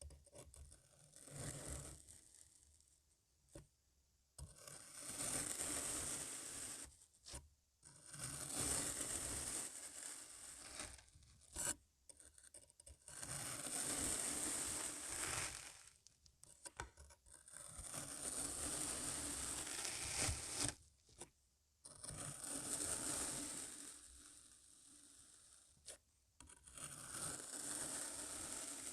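A blade slicing through packed, crunchy kinetic sand, heard as a run of gritty scraping strokes of two to three seconds each, divided by short pauses.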